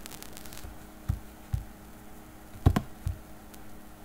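Four soft knocks or taps, the loudest about two and a half seconds in, over a steady faint electrical hum.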